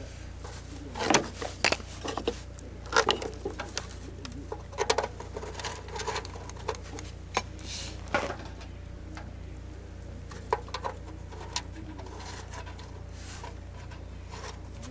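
Irregular clicks and knocks of hand tools and metal parts being worked on an old engine, a few to several a second for the first half and sparser later, over a steady low hum.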